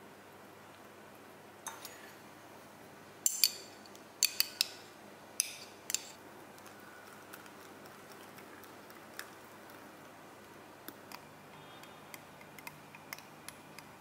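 A wire whisk clinking against the sides of a glass measuring jug while mixing chocolate cake batter. Several sharp clinks come close together in the first half, then lighter, scattered ticks.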